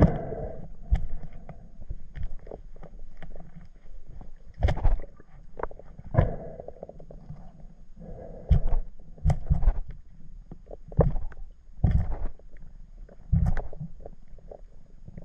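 Muffled underwater handling noise picked up through an action-camera housing: irregular knocks and low thumps about once a second over a murky rush of water, as a diver's gloved hands grip and wrestle a speared fish.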